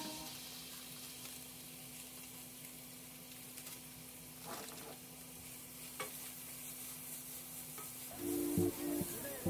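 Food sizzling in a frying pan as it is stirred, with two sharp knocks of the utensil against the pan partway through.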